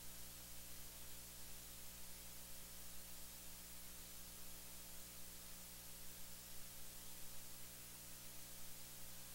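Steady hiss with a low electrical hum from the recording's noise floor.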